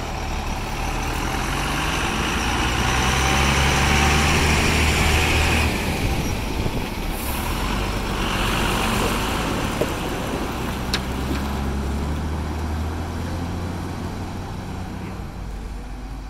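Hyundai 210 crawler excavator's diesel engine running under load with a hydraulic whine as it swings and digs, loudest about four to six seconds in and rising again briefly a little later. A single sharp click about eleven seconds in.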